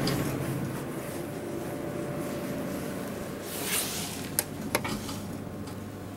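Elevator down call button pressed: two sharp clicks about a third of a second apart, just after a brief rustle, over a steady low hum.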